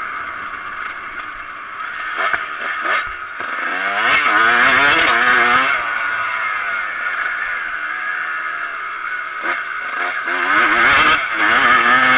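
Kawasaki KX125's two-stroke single-cylinder engine heard from onboard as the bike is ridden over a dirt track, its revs climbing and falling as the throttle opens and closes, rising hard twice. A few sharp knocks sound over the engine.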